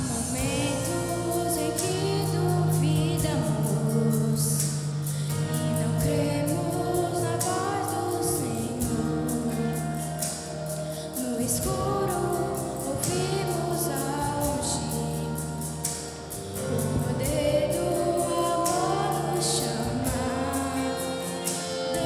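Children's choir singing a gospel song over instrumental accompaniment with steady bass notes and light percussion.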